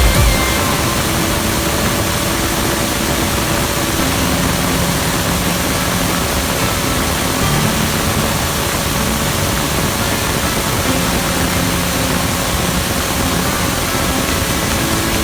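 Compressed air from an air-compressor nozzle blasting steadily onto a fidget spinner, a loud continuous hiss that holds level throughout. Background music with held low notes plays under it.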